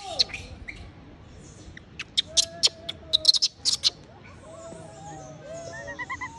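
A quick run of sharp crackling clicks about two seconds in, with short arched chirping calls from an animal repeating through the second half.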